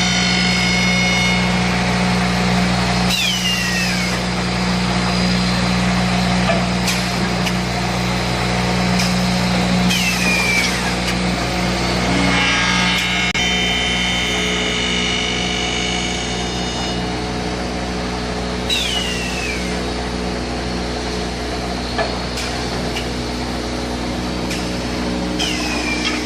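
Automatic woodworking machinery of a broom stick production line running with a steady hum. A short falling whine repeats about every seven to eight seconds, with a few light knocks.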